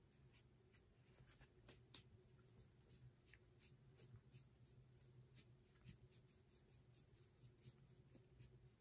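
Near silence: a foam sponge brush rubbing and dabbing alcohol ink on a metal tray, heard as faint scattered light ticks over a low steady hum.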